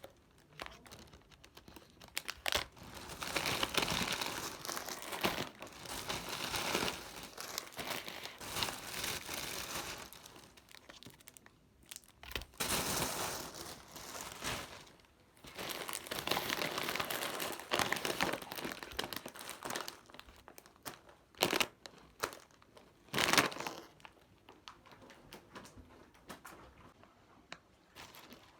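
Packaging crinkling as it is handled, in irregular bursts of rustling, with two sharper clacks about three quarters of the way through.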